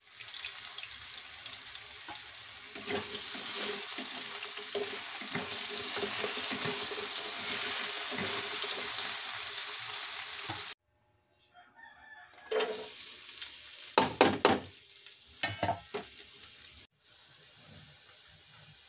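Diced potatoes and carrots frying in hot oil in a nonstick frying pan: a steady sizzle for about ten seconds that cuts off suddenly. After a short pause come a few loud knocks and scrapes of stirring in the pan over a fainter sizzle, and near the end a faint steady sizzle of onions and garlic sautéing.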